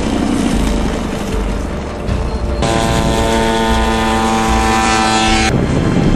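Engine and pusher propeller of the Spoonbill UAV running, mixed with wind noise on the microphone. From about two and a half seconds in to about five and a half seconds, a steady engine tone with many overtones comes in and then cuts off abruptly.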